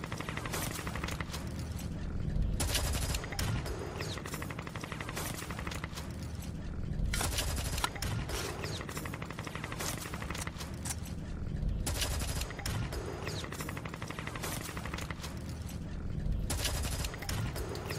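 Dubbed-in light machine gun fire: rapid automatic fire in repeated bursts, the loudest coming about every four to five seconds, over a steady low rumble.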